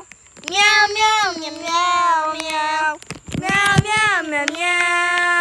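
Voices singing "meow" on about four long, steadily held notes, each starting with a sliding swoop in pitch. The singing sounds weird.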